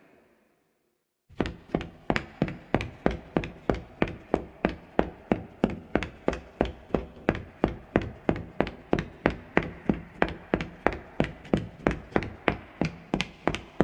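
Footsteps of leather-soled shoes on a soft wooden floor, a quick, even pace of about three steps a second. They start about a second in after a short silence.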